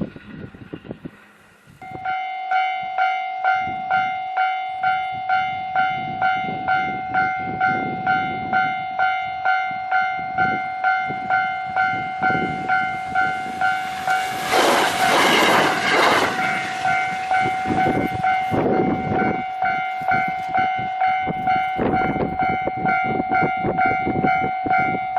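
A Japanese level-crossing warning bell starts about two seconds in and rings on at about two strikes a second. Midway, a 701-series electric local train rushes over the crossing, its wheels clattering on the rails, and then the train noise fades while the bell keeps ringing.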